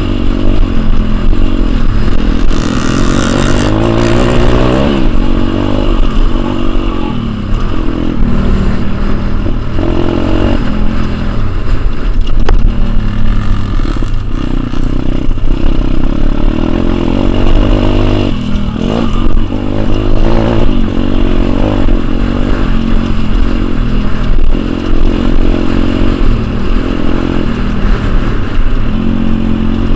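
Pit bike engine, recorded from on the bike, revving hard as it is ridden round a dirt motocross track. Its note rises and falls over and over with the throttle.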